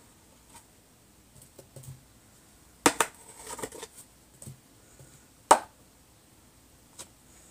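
A few sharp clicks and knocks of small objects being handled, loudest about three seconds in and again about five and a half seconds in, with fainter ticks between.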